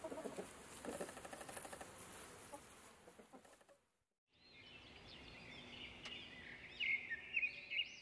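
Chickens clucking quietly, then after a brief silence a European robin singing: high, thin warbling phrases that get louder near the end.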